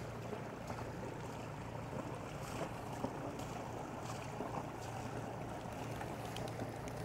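Motor boats passing on the river: a steady low engine hum over faint water and outdoor background, with a few scattered light ticks.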